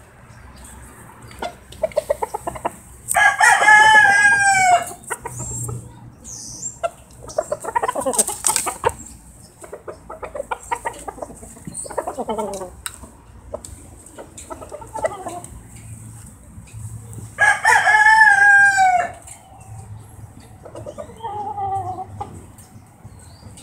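Two rooster crows, each about two seconds long, with clucking and scattered clicks between them.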